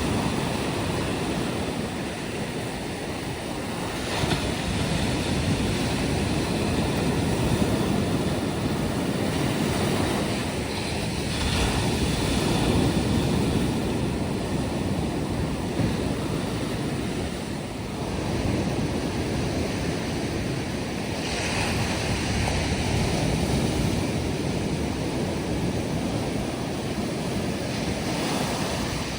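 Sea waves breaking and washing up on a sandy beach, the surf swelling and easing every few seconds, with some wind on the microphone.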